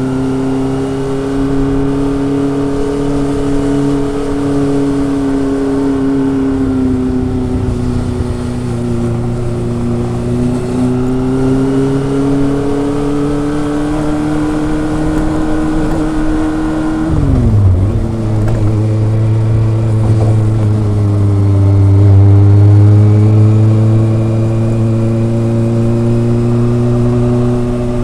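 Kawasaki ZRX motorcycle's inline four-cylinder engine and exhaust running under way, its revs rising and easing gently. About seventeen seconds in, the revs drop sharply, then climb again.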